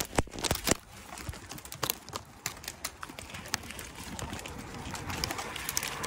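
Dry twigs snapping and branches scraping and rustling as the way is pushed through a dense tangle of thin branches: a quick run of sharp snaps in the first second, then scattered clicks.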